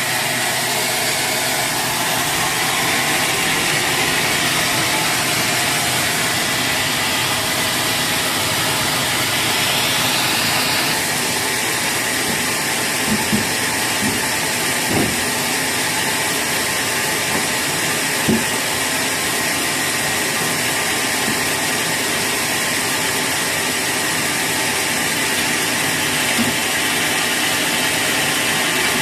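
Sawmill machinery running steadily, with a hissing whine whose upper part changes about eleven seconds in. A few light knocks come in the second half.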